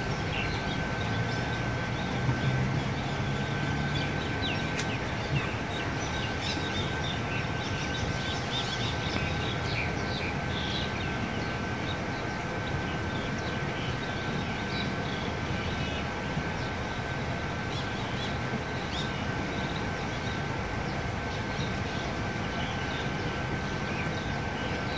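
Steady outdoor background hum with a constant high whine throughout, and faint scattered chirps or clicks over it.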